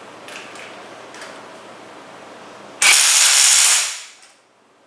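ZIPPTORK cordless DC torque-control impact wrench hammering a flange bolt tight: a loud burst of about a second, starting about three seconds in, that winds down and stops. Before it, a few faint clicks of handling.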